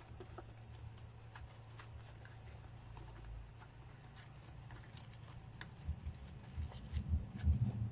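Faint rustling and scattered light clicks of craft materials being handled while a wreath is put together, with a few low bumps near the end.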